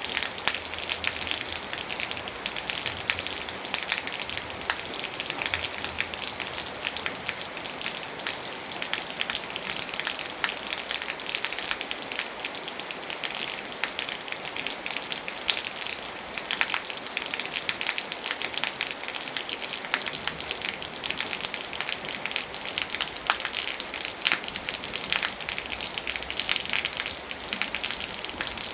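Steady rain falling on a surface, a dense continuous hiss with many small sharp drop ticks throughout.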